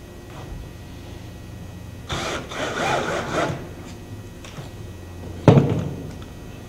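Cordless drill driving a screw through an extruded aluminium Panelclip into a wooden panel. The motor runs for about a second and a half, starting about two seconds in, with its pitch wavering as the screw seats. A single sharp knock follows near the end.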